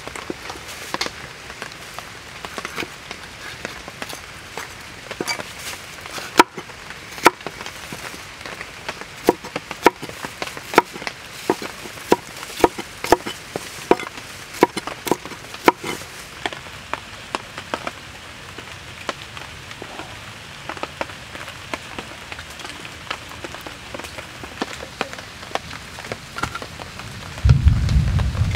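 Large knife chopping bell peppers on a wooden cutting board: a run of sharp, irregular knocks, thick in the first half and sparser later, over a steady background hiss. Near the end a sudden low rumble comes in.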